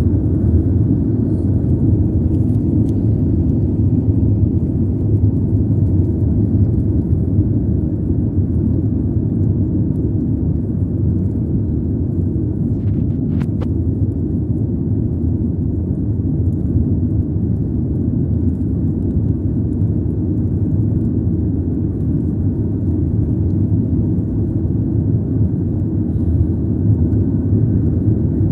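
A car driving along an asphalt road, heard from inside its cabin: a steady low road rumble, with two faint clicks about halfway through.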